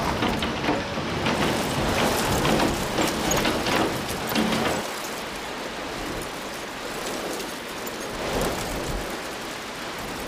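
Heavy hail pelting parked cars: a dense, loud clatter of many hard hits. About five seconds in it cuts to a quieter steady hiss of rain on a wet road.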